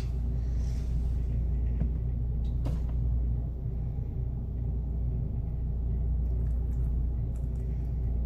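A steady low rumble, with a few faint clicks of a metal tablespoon scooping mayonnaise into a bowl about two and three seconds in.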